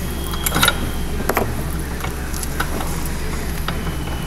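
A few light clicks and knocks from a coil spring tester and spring being handled and set up, over a steady low hum.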